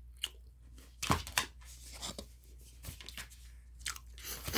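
Handling noises: rustling with a few irregular sharp knocks and clicks, the loudest a little after one second in.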